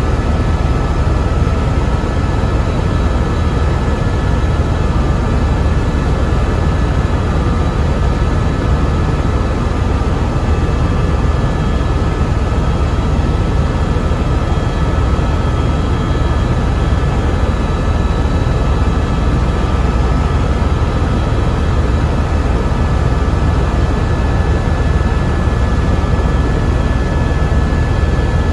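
Cabin noise of an Airbus EC130 single-turboshaft helicopter in cruise flight: a steady, loud low rotor rumble under an even rushing noise, with a thin steady whine on top.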